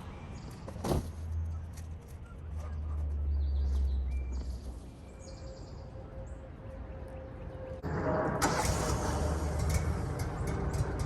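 Wood-Mizer LT15 portable band sawmill's engine idling with a low rumble. About eight seconds in it suddenly gets much louder and fuller as the mill is brought up to cutting speed.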